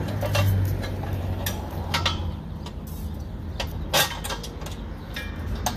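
Metal clinks and knocks as a propane-tank hold-down bracket is fitted over two tanks on a trailer's tongue tray, with a sharper knock about four seconds in. A low steady hum fades out a little after two seconds in.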